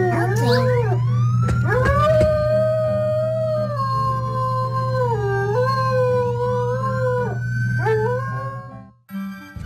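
A dog howling: long, drawn-out howls whose pitch wavers, dips and rises again, stopping about nine seconds in.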